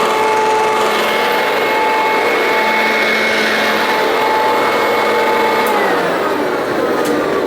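Perfect P101 commercial upright vacuum cleaner running with a steady whine over its airflow noise. About six seconds in, its pitch starts falling as the motor begins spinning down.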